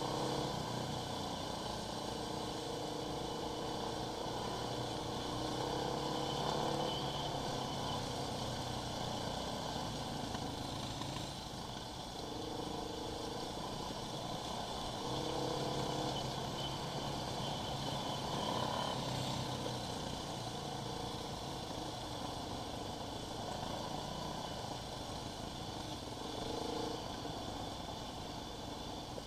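Quad bike (ATV) engine running, heard from the quad itself as it rides a rough dirt track. The engine note shifts up and down every few seconds with the throttle.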